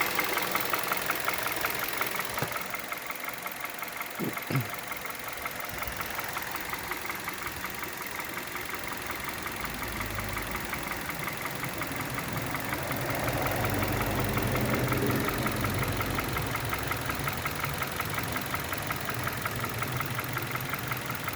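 Hyundai Solaris G4FC 1.6-litre four-cylinder petrol engine idling nearly warm, with a rapid, even tapping knock that seems to come from the top of the engine. Decarbonising and a new crankshaft sensor have not changed the knock, and its cause is unknown. A deeper hum swells briefly around the middle.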